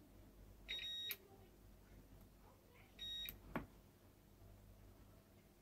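Multimeter continuity beeper sounding twice, two short high beeps about two seconds apart, each marking a closed path through the relay harness's switched contacts. A sharp click follows shortly after the second beep.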